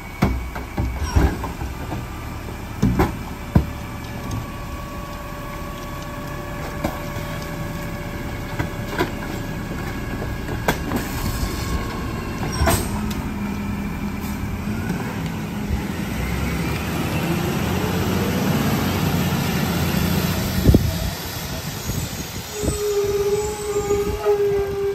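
McNeilus rear-loader garbage truck at work: trash and a cart banging into the steel hopper in the first few seconds and again about halfway, then the engine revving up as the hydraulic packer blade runs its compaction cycle. A steady tone sounds in short stretches near the end.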